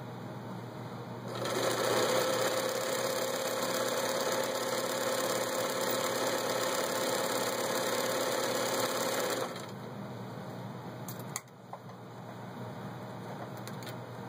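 Bernina Record 830 sewing machine running steadily as it stitches through fabric, starting about a second in and stopping after roughly eight seconds. A sharp click follows a couple of seconds after it stops.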